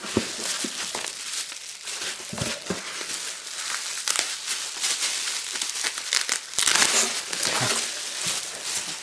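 Plastic bubble wrap crinkling and rustling as a hand digs through it inside a cardboard box, a steady run of small crackles that is loudest about two-thirds of the way through.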